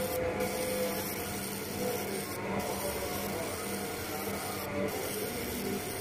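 Laser marking machine engraving numbers into anodized aluminium bird leg rings: a steady noisy whir with a low hum beneath, the hiss dipping briefly about every two seconds.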